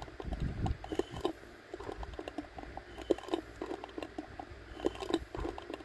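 Irregular soft clicks, taps and squishy sounds as air is pulsed by mouth through a homemade zero-pressure gas regulator, its rubber plunger and garbage-bag plastic diaphragm working under very little pressure.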